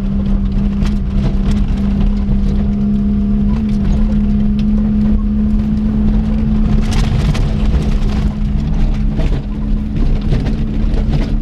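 Ford Fiesta engine running at a steady pitch inside the cabin while driving a gravel track, with loose stones clicking and rattling against the car's underside, heaviest about seven seconds in.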